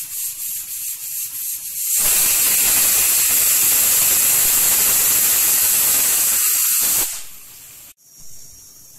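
Pressure cooker's weighted whistle valve venting steam. Sputtering puffs of hiss build for about two seconds into the full whistle, a loud steady hiss lasting about five seconds. It then drops sharply to a softer hiss. This is the first whistle, the sign that the cooker has come up to pressure and the rice is done.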